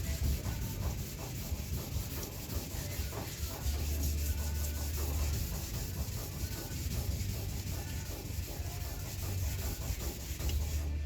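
Wet sanding of a truck's clear coat by hand with 2000-grit sandpaper and soapy water: a steady, rapid back-and-forth rubbing, cutting the fresh clear smooth before polishing.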